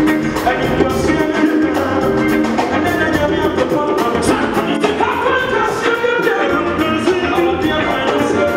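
Live gospel music: a male lead singer sings into a microphone over a band with drum kit, hand drum and guitars keeping a steady beat.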